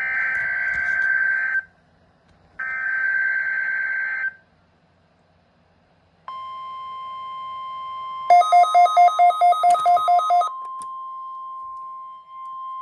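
NOAA Weather Radio emergency alert signal through a Midland HH54VP weather radio's speaker: two harsh, buzzy EAS data bursts of about a second and a half each. After a pause comes the steady 1050 Hz warning alarm tone, marking the required weekly test. About two seconds after the tone starts, a fast pulsing beep of about four or five a second sounds over it for about two seconds.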